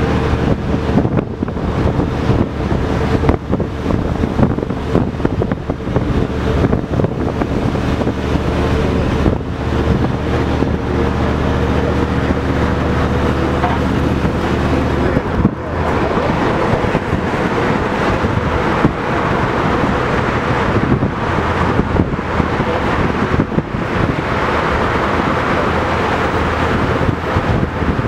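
LiAZ-677M bus's V8 petrol engine running under way, heard from inside the cabin together with wind and road noise. The engine note dips and changes about halfway through.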